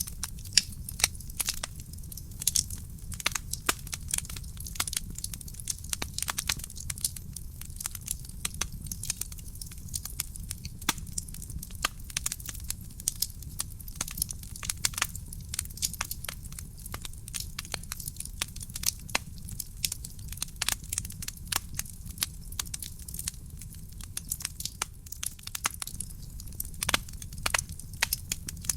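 Wood fire burning in a fireplace, crackling: dense, irregular sharp pops and snaps of burning wood over a steady low rumble.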